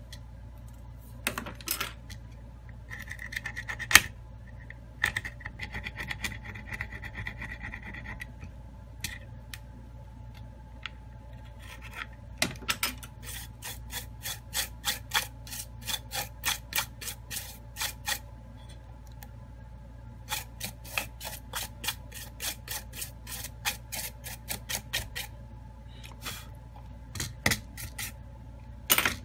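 A brush scrubbing back and forth over a phone's metal midframe in quick, repeated strokes, about three or four a second, in two long runs. Earlier there is scraping and rubbing on the frame, with one sharp click about four seconds in.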